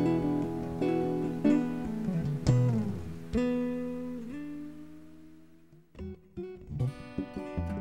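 Acoustic guitar music: plucked notes ringing out and slowly fading, dying away about six seconds in before a new phrase of notes begins.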